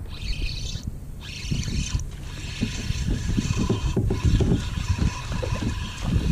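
Spinning reel whirring in spurts as a hooked fish is reeled in, the whir stopping briefly about a second, two seconds and four seconds in. Wind gusts on the microphone.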